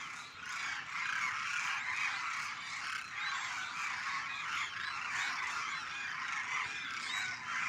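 A large flock of demoiselle cranes calling together, a dense chorus of many overlapping calls with no pause.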